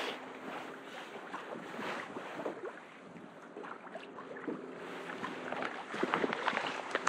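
Wind on the microphone and water lapping against an anchored fishing kayak, with scattered small knocks and ticks, a few more of them near the end.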